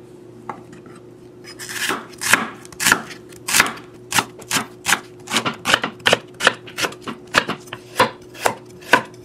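Chef's knife slicing through a red onion and carrot onto a wooden cutting board, sharp regular strokes about two or three a second, starting about a second and a half in.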